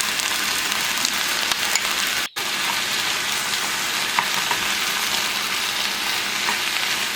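Chopped onion, peppers and cubed chicken sizzling in oil in a pan with tomato paste just added, a steady hiss. It breaks off for an instant a little over two seconds in.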